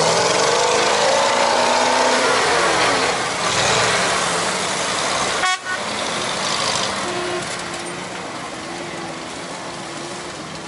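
GAZ-66 truck engine revving hard in deep mud, its pitch rising and falling over the first few seconds. After a sudden break about five and a half seconds in, engines run more quietly and steadily.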